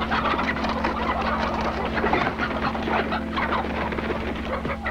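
A flock of chickens squawking and clucking in a busy, overlapping clamour.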